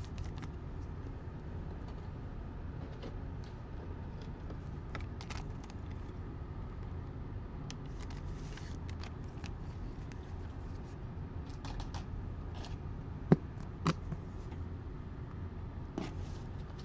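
Trading cards being handled, with faint rustles and light clicks scattered throughout and two sharper clicks about thirteen and fourteen seconds in, over a steady low hum.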